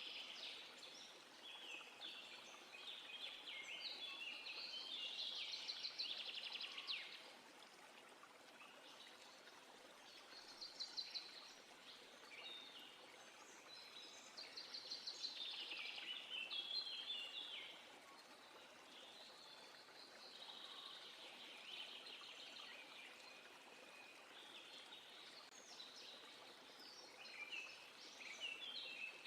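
Songbirds singing in spells of rapid, repeated high notes, with short pauses between phrases, over a faint steady background hiss.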